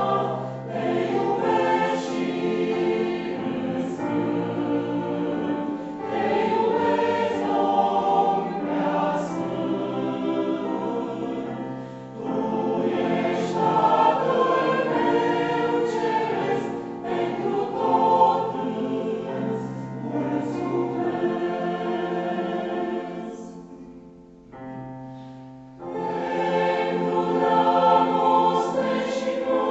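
Mixed choir of men and women singing. About three-quarters of the way through the singing fades to a soft, hushed passage, then the full choir comes back in.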